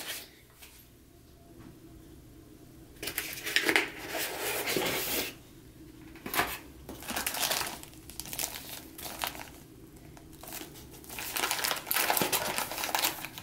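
Plastic packaging bags crinkling in irregular spells as they are handled and lifted out of a cardboard box, after about three quiet seconds at the start.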